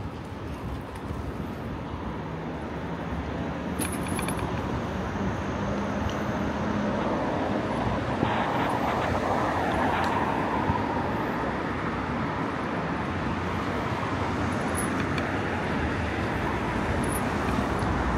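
Street traffic and road noise heard while riding a bicycle along a city street. A vehicle passes, loudest about eight to ten seconds in, and a few faint clicks come near the start and again later.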